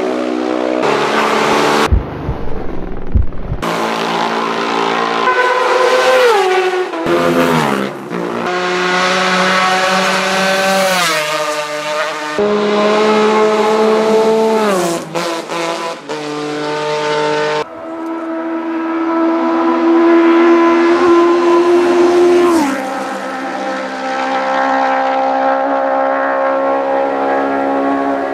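Classic racing motorcycles passing flat out at around 140 mph, one after another. Each engine note holds high as the bike approaches, then drops sharply in pitch as it goes by. The passes are cut together, so the sound breaks off abruptly several times.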